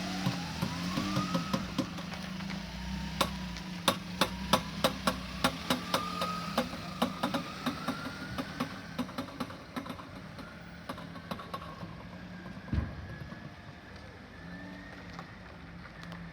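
Suzuki Wagon R (MH23) making a loud, sharp knocking that repeats about two to three times a second over a running hum and a whine that rises in pitch. The knocks weaken and die out after about twelve seconds. It is an abnormal noise whose origin the owner cannot place, whether the CVT or somewhere around the tyres.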